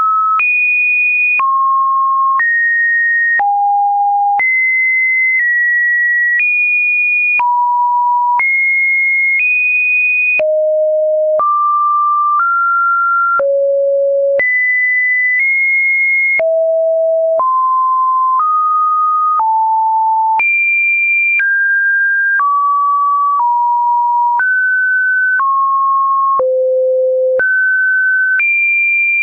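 A string of computer-generated sine-wave test tones in the Webdriver Torso style, one pure beep about every second. Each beep jumps to a new pitch, at random between low and high, with a faint click at each change.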